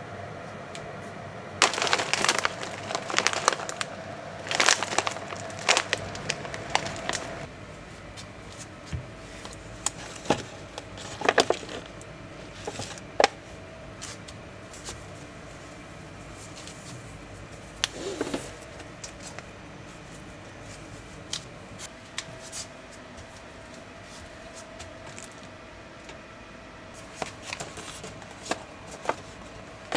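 Plastic food packaging crinkling and packets and boxes being handled and set down with light knocks, in several bursts with quieter stretches between.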